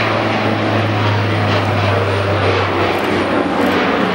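Bombardier Dash 8-400 turboprop airliner climbing out at takeoff power, its two turboprop engines and propellers making a loud, steady low propeller hum over a wide rushing noise. The low hum weakens about three seconds in as the aircraft climbs away.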